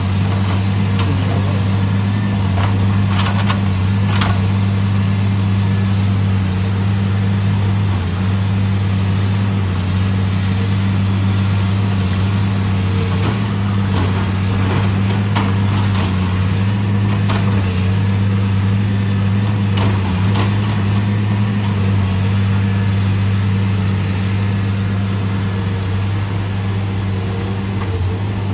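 Heavy equipment's diesel engine running steadily at a constant speed, a loud low hum, with scattered short metallic clanks and knocks as a tracked log loader works.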